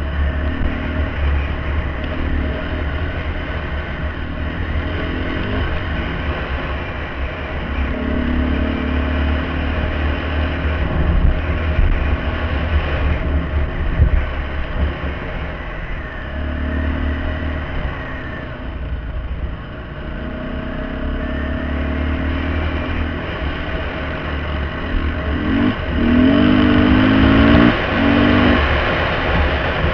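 Dirt bike engine heard from on board the bike while it rides a dirt trail. The engine note rises and falls with the throttle, and it revs hardest and loudest near the end.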